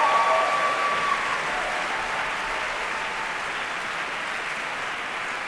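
Audience applauding, slowly fading, with a held cheer over the clapping in the first second.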